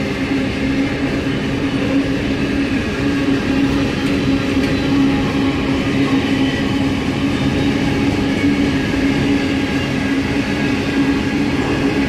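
Freight train of container wagons rolling past close by: a steady, even rumble of steel wheels on rail with a constant low hum running through it.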